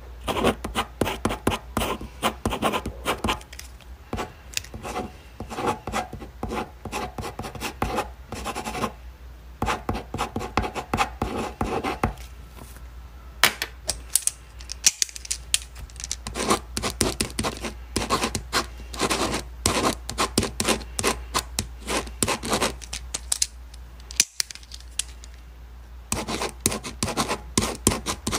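A pen writing on paper: quick scratching strokes in bursts, with a few short pauses between runs of writing. A low steady hum sits underneath.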